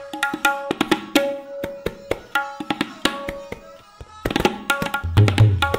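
Tabla solo in fast teentaal: a quick run of crisp strokes on the ringing, tuned dayan. About four to five seconds in, deep resonant bayan (bass drum) strokes join in and grow strong.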